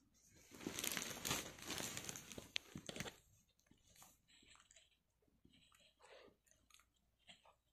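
A dog crunching and rustling at soft bread rolls in a tray for about three seconds, then sniffing at them in short, scattered sniffs.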